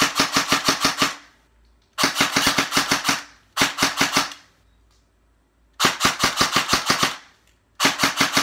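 G&P Stubby M4 airsoft electric gun (AEG) with a high-speed motor and an 11.1 V LiPo, firing five short full-auto bursts of rapid clicking shots with brief pauses between.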